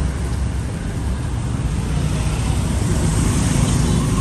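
Street traffic noise: motor vehicle engines running with a steady low rumble and road hiss, growing a little louder near the end.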